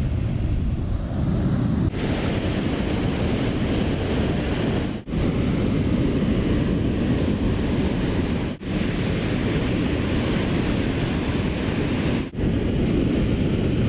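Steady rushing of water with wind buffeting the microphone, briefly dropping out several times.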